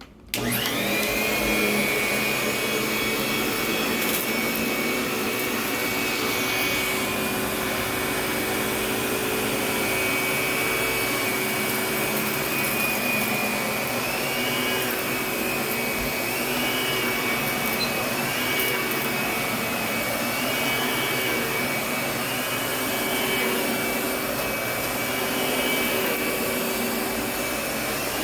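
Lindhaus vacuum cleaner switched on: its motor whines up to speed within a second, then runs steadily with a high whine. From about halfway, a higher whine rises and dips about every two seconds.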